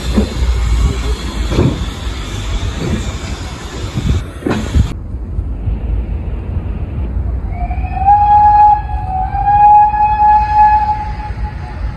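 A steam locomotive's whistle sounding two long blasts on one high note, the first sliding up into pitch, a little past halfway. Before it, a low rumble with wind buffeting the microphone.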